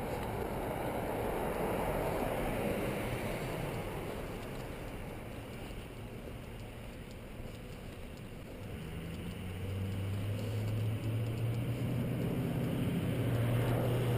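Road traffic going by. A passing car's tyre and road noise swells and fades in the first few seconds. Then, from about nine seconds in, a loud vehicle's low engine drone builds steadily as it approaches.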